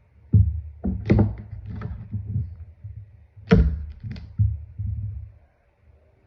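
Slime being handled close to the microphone: a run of irregular soft thumps and clicks, the loudest about half a second in and again about three and a half seconds in.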